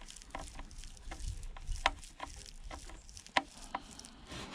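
Irregular light clicks and taps of plastic speaker parts and tools being handled on a work surface during a teardown, about eight in all.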